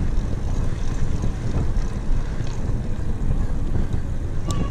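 Wind rushing over the microphone of a bicycle-mounted camera while riding on pavement, a steady rumble. A brief sharp click comes near the end.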